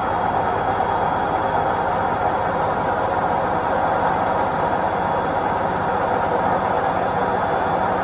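Indesit IWC71252 front-loading washing machine on its spin cycle: the drum spinning at speed with a steady whirring rush and a faint high whine above it.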